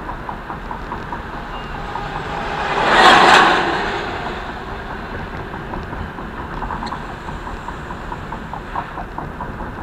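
Steady road and engine noise inside a moving car, with a swell of rushing noise that rises and falls about three seconds in.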